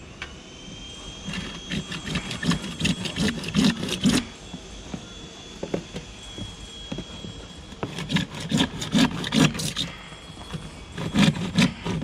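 Hand saw cutting through a rainwater downpipe in quick back-and-forth strokes, about three a second, in three spells with short pauses between.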